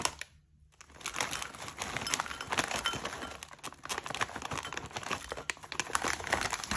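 A crinkly plastic snack bag of puffed corn snacks being handled and tipped out, with the pieces clattering into a small bowl. It starts about a second in, a dense crackle full of small clicks.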